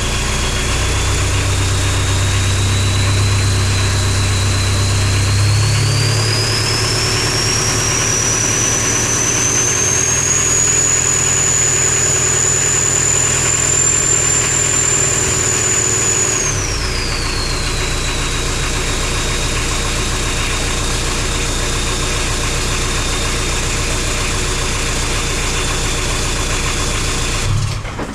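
Mitsubishi L200 Warrior's four-cylinder turbodiesel, running on 100% biodiesel through twin 3-inch stack exhausts, with a high turbo whistle. The whistle climbs in pitch as the revs come up about five seconds in, holds, then falls back as the engine settles to idle, and the engine is shut off near the end.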